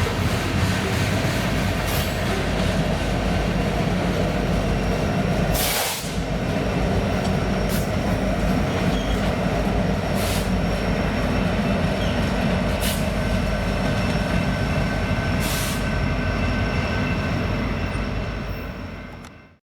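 Freight train rolling past: steady steel wheel-on-rail noise with a faint thin squeal and a sharp click every two to three seconds. It fades out near the end.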